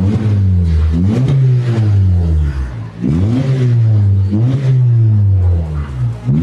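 Car engine revved in several quick throttle blips, each rise in pitch falling back to idle, through an exhaust with its cutout valve opened for the louder, free-flowing sport sound.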